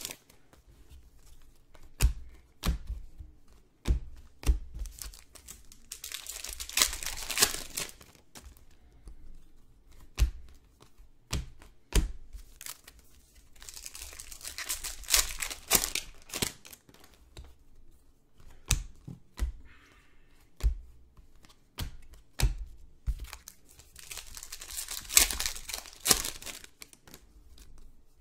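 Prizm basketball card pack wrappers being torn open and crinkled, in three longer stretches, with scattered sharp taps and clicks from cards being handled on a table.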